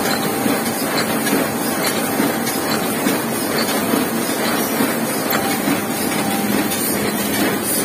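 Heidelberg KORS single-colour sheet-fed offset press running: a steady mechanical clatter with faint scattered clicks.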